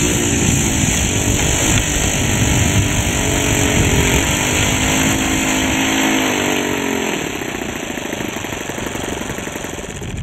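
Engine of a radio-controlled Percival Provost scale model running as the model taxis, its pitch wavering with the throttle. About seven seconds in it is throttled back and runs more quietly.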